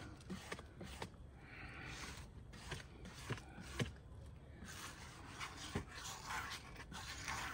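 Faint rubbing and scraping strokes on a wooden stump worked over by hand, in a few short spells, with scattered light clicks and knocks.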